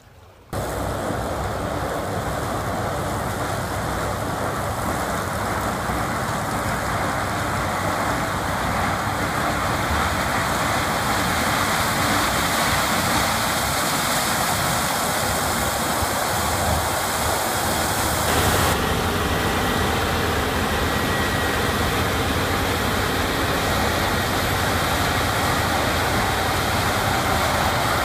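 Claas Lexion 760 TerraTrac combine harvester running steadily while harvesting maize, its engine and threshing machinery with a maize header making a dense, even mechanical roar with a low rumble beneath. It comes in suddenly just after the start, after a brief quieter moment.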